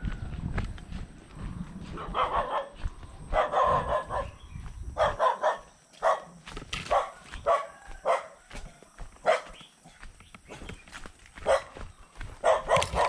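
A dog barking repeatedly: about a dozen short barks, some single and some in quick runs, starting about two seconds in and carrying on to the end.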